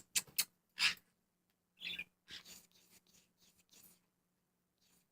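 A pet parrot making a few short clicks and one brief chirp, with quiet gaps between them.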